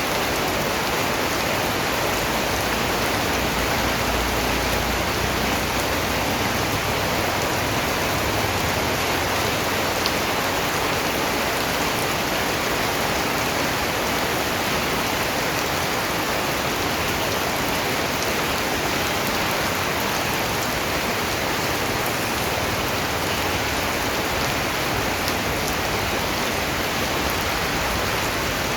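Steady rainfall: an even, dense hiss of rain with faint individual drop patters on a surface.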